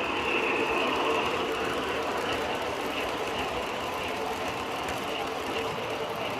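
MTH O-gauge R-40 Slant model subway train running between stops, its sound system playing subway running sounds: a steady noise with a held whine that cuts in suddenly at the start.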